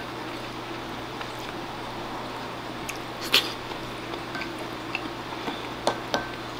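Eating sounds: a wooden spoon scooping mapo tofu from a ceramic bowl, with soft wet chewing and mouth sounds and a few sharp taps of spoon on bowl, the loudest about halfway through and two more near the end, over a steady low hum.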